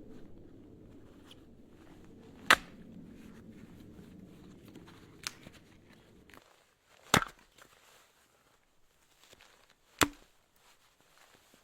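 Firewood being chopped: three sharp, loud blows a few seconds apart, with a lighter knock between the first two. A low steady rumble underneath stops suddenly about halfway through.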